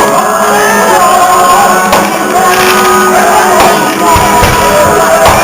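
Loud rock-style music with singing voices. A few low thumps come in from about four seconds in.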